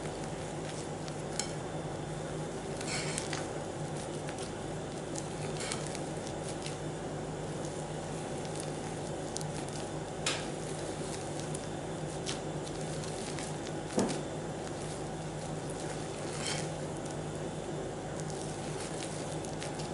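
Spatula folding whipped egg whites into cake batter in a ceramic bowl: soft wet stirring with a few light knocks and scrapes against the bowl, the sharpest about fourteen seconds in, over a steady background hum.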